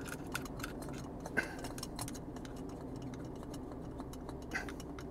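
A few faint clicks and taps as fingers handle a plastic suction-cup camera mount and clamp on a car windshield, over a low steady hum.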